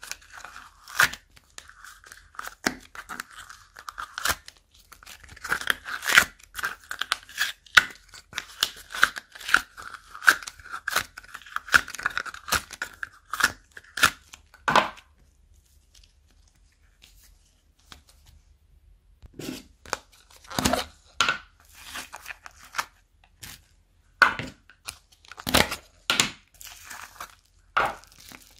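Hands tearing and crumpling soft clay and a small plastic bag at close range, a dense run of crackly tearing and crinkling sounds. About halfway through it falls quiet for a few seconds, then resumes as separate louder tears and squishes.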